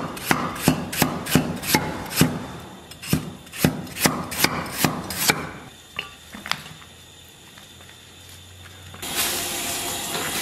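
Chinese cleaver slicing ginger on a thick wooden chopping block: a run of sharp chops, about three a second, then a few lighter taps. About nine seconds in, a steady hiss from a wok of water boiling hard.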